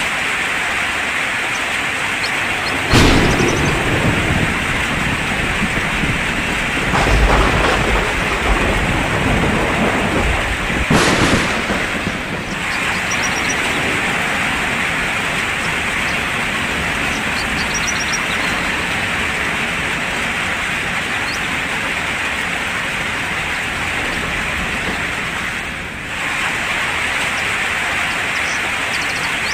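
Steady rain, with thunder: a sharp clap about three seconds in that rumbles on, a longer deep rumble around seven seconds, and another crack around eleven seconds.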